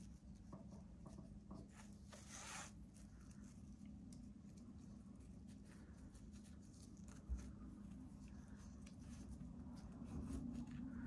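Faint rustling and small clicks of a rhinestone ribbon being rolled up by hand, with a slightly louder scratchy stretch about two seconds in.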